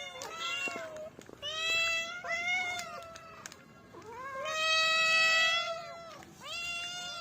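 A cat meowing repeatedly: about five separate high-pitched meows, each rising and then falling in pitch, with one longer, drawn-out meow in the middle.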